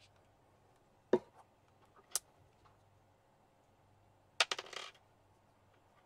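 Sharp metallic clicks of small cylindrical magnets being handled and set down on hard surfaces: one loud click about a second in, a lighter one a second later, then a short clattering rattle of several clicks a little after four seconds in.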